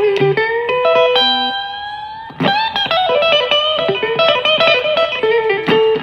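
Gibson Les Paul electric guitar playing a blues lead: quick single notes, then a held note that slowly fades, then a sharp attack about two and a half seconds in followed by bent, sustained notes.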